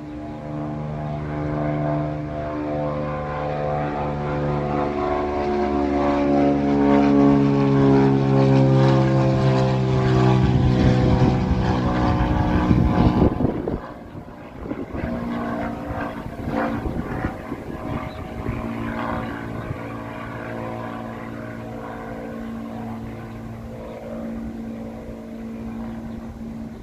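Single-engine propeller aircraft (a Cirrus SR22's six-cylinder piston engine and prop) running while taxiing, growing louder with its pitch drifting, then a rush of noise about 12 seconds in. The sound drops off suddenly, leaving a quieter, steady engine tone.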